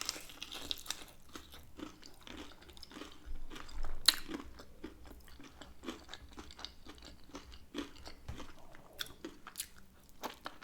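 Close-up chewing and biting of thick air-fried chicken wings: irregular wet smacks and small crunchy clicks, with a sharper crunch about four seconds in.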